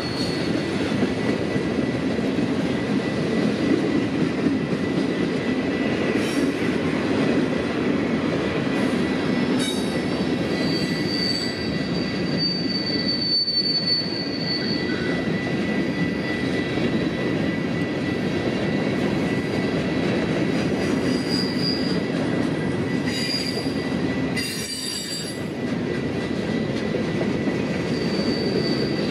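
Freight train cars rolling past on the rails with a steady rumble, and a high, thin wheel squeal that comes and goes, longest about halfway through.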